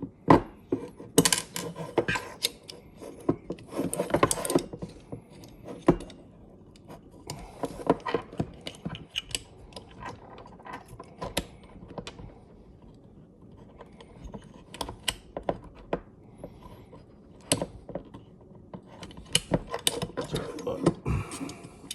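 Small steel parts of an AR-15 trigger group clicking and rattling against the lower receiver as a pin is worked into place. The clicks come irregularly, with a few short rustling stretches and a quieter pause about halfway through.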